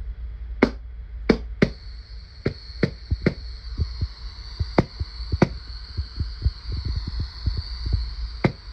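Wolverine Inferno Gen 2 HPA engine in an airsoft rifle: about nine sharp clicks as the gun is worked, and from about a second and a half in a steady high-pitched hiss of compressed air leaking, a leak the owner puts down to damaged or dried O-rings. A low rumble runs underneath.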